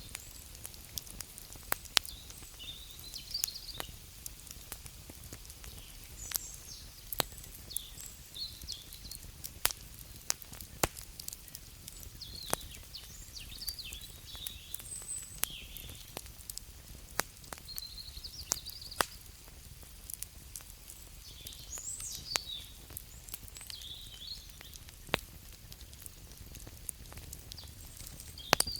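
Wood fire crackling, with sharp irregular pops over a low steady rumble. Short high chirping calls come and go every few seconds.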